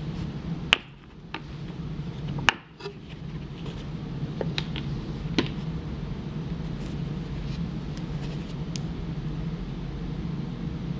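Plastic hard-shell watch case being unlatched and opened: two sharp snapping clicks about two seconds apart as its latches release, then a few lighter clicks and handling of the lid and its contents, over a steady low hum.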